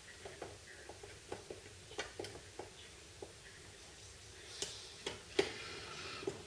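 Quiet, irregular clicks and taps of small parts and hand tools being handled, with a few sharper clicks near the end.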